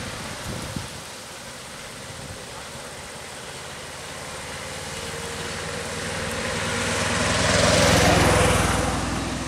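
A motor vehicle driving past: engine rumble and tyre noise grow louder, peak about eight seconds in, then fade.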